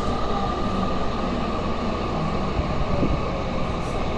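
Tokyu 5050 series train's Hitachi IGBT VVVF inverter and traction motors whining, heard from inside the car over the rumble of wheels on rail. The whine holds one steady high tone while lower tones shift in steps.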